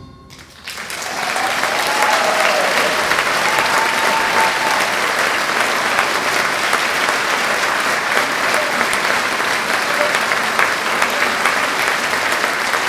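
Audience applause breaking out about a second in, as the orchestra's last chord dies away, and then running on steadily. A few cheers come through early in the applause.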